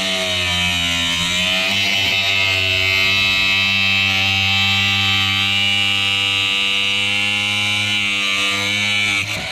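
Angle grinder with a flap disc running steadily while it trims away part of a golf cart's fender flare. Its pitch sags a little as it bites in, about a second and a half in.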